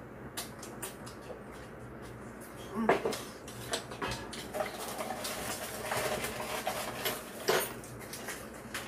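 Spoon and chopsticks clinking and scraping against bowls during a meal, in scattered knocks and clicks, the sharpest about three seconds in and again a few seconds later.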